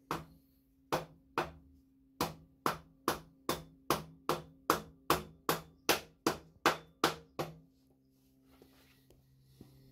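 Hammer blows on a wooden block held against a stainless steel 4-into-1 exhaust collector, knocking it forward onto the header pipes. There are about seventeen sharp knocks, quickening to two or three a second, and they stop about seven and a half seconds in.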